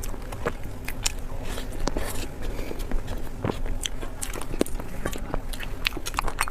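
Close-miked eating: chewing and biting with irregular mouth clicks and smacks, several a second.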